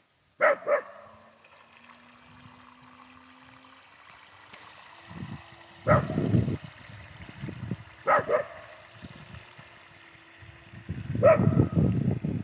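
A dog barking in short single and double barks, a few seconds apart, over a faint steady hum. A low rumbling noise builds near the end.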